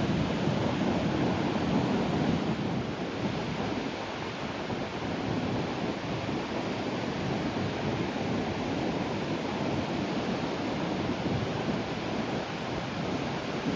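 Sea waves breaking on the shore: a steady rush of surf, a little louder for the first few seconds, then settling into an even wash.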